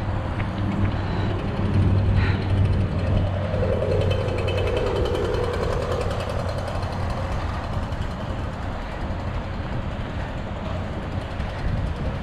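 Outdoor city traffic noise: a steady low hum, with a vehicle passing and swelling louder about four seconds in.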